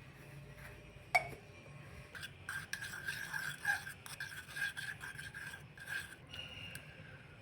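Kitchen utensil work: a sharp clink about a second in, then a couple of seconds of irregular scraping and rubbing strokes, like a spoon working against a dish or bowl.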